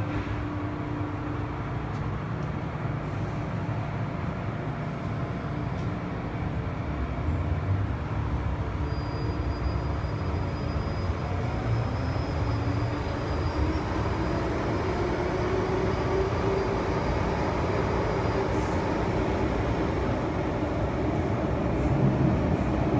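MTR Island Line M-Train heard from inside the car as it pulls away from the platform and gathers speed into the tunnel. A steady low rumble runs throughout, and a motor whine climbs in pitch from about halfway through.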